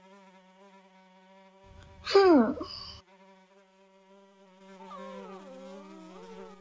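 Housefly buzzing steadily as a cartoon sound effect. About two seconds in comes a short, loud vocal sound that falls in pitch.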